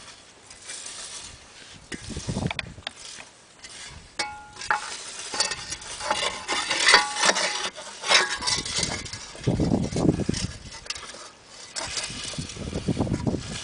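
Thin rusty sheet-steel brake-disc dust shield being handled and fitted around a wheel hub: irregular scraping and rattling of metal on metal, with a short metallic ring about four seconds in.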